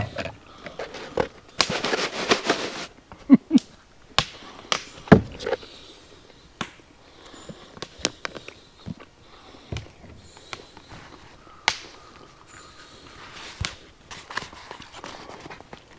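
Wood fire crackling in a fire pit: irregular sharp pops and snaps, with a short burst of hiss about two seconds in.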